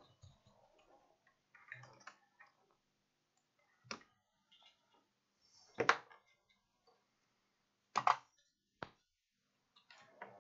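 Irregular sharp clicks and taps of small repair tools and parts being handled on a workbench, about six in all, the two loudest in the second half.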